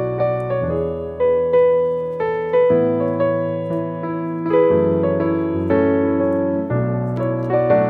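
Background piano music: a melody of struck notes over changing chords.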